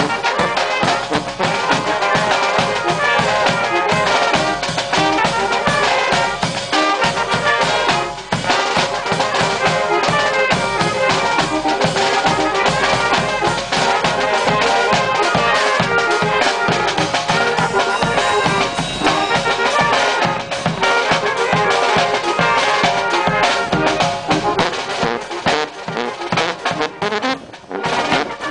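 Mexican tamborazo band playing live and loud: trumpets and saxophones carrying the melody over a sousaphone bass line, with a large tambora bass drum, cymbal and snare drum keeping a driving beat.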